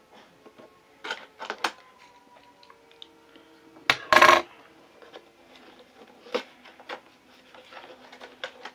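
Unboxing an action figure: cardboard box and plastic packaging handled. A few light clicks, then a louder crinkling rustle about four seconds in as a yellow plastic insert is pulled out of the box, then a couple of softer taps.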